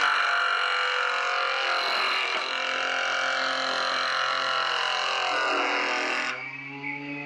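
Homemade jointer's cutterhead planing a face of a wooden bar in one pass: a loud, steady cutting noise that lasts about six seconds and stops abruptly, over a steady hum that goes on after it.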